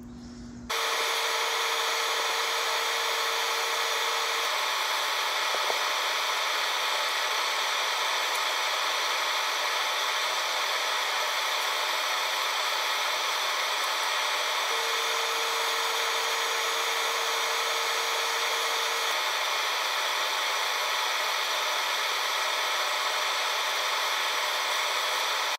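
Steady whirring hiss of a hobby spray booth's exhaust fan while a model car body is airbrushed. A low steady hum joins for a few seconds at the start and again midway.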